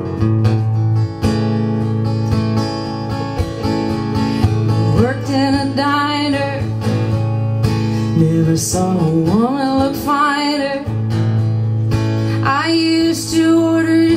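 Acoustic guitars strumming a slow country song, with a woman singing over them from about five seconds in.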